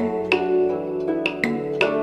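Background music: a melody of plucked string notes, several a second, each note ringing on.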